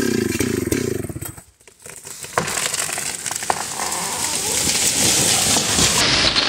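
Chainsaw running in a cut through a large tree trunk, cutting out about a second and a half in. Then a few sharp cracks of wood and a rising rushing, crackling noise as the tree comes down through the branches.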